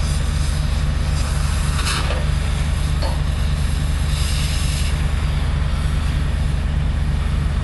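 A heavy engine idling steadily, a deep even drone, with short hissy swells about two seconds in and again around four to five seconds.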